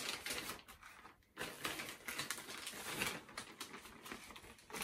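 Large plastic zip-seal freezer bag rustling and crinkling in irregular bursts as it is opened out and handled while frozen food portions are packed into it.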